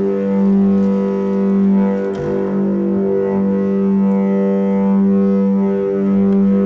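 A low, sustained droning tone with shifting overtones, played on a sampler as a reconstruction of the 'strange sounds from the sky' (sky trumpets) noise. A short click about two seconds in.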